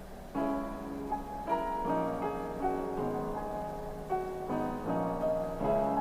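Background piano music: chords and single notes changing every half second or so, starting about half a second in.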